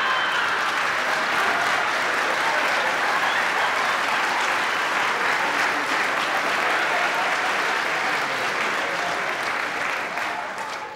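Theatre audience applauding steadily, thinning out near the end.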